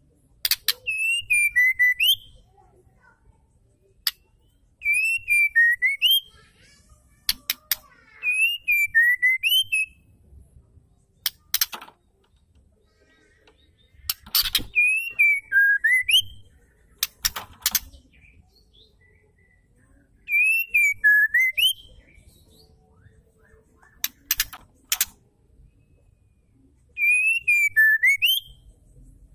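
Female white-rumped shama calling in repeated phrases about every three to four seconds: each phrase is a quick run of sharp clicks and then a short whistle that dips and swings back up, with thin high twitters over it.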